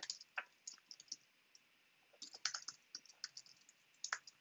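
Typing on a computer keyboard: faint scattered keystroke clicks, with a quick run of keystrokes in the middle and a couple of firmer taps near the end.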